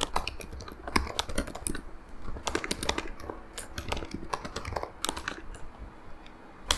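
Typing on a computer keyboard: a run of irregular key clicks as a sentence is typed, with one louder click near the end.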